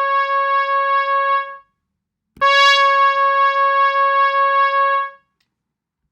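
A synthesizer note from Ableton's Learning Synths web tool, at one pitch with many overtones, dies away about a second and a half in; the same note is struck again about two and a half seconds in and held for nearly three seconds. Each note starts bright on the hit, and its tone then mellows as the top overtones fade, showing the timbre changing over time.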